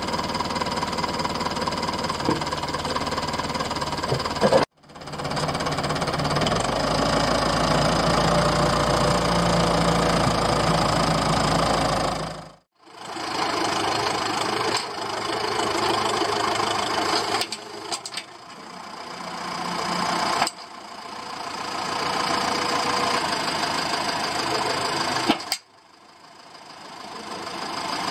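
Renault 651-4 tractor's diesel engine running while its front loader handles round bales. The engine note swells and drops several times and breaks off abruptly at a few points.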